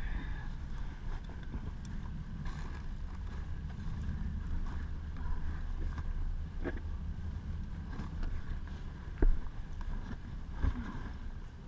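Rustling and handling noise of gear being worked into a backpack over a steady low rumble on the microphone, with a few sharp knocks, the loudest about nine seconds in.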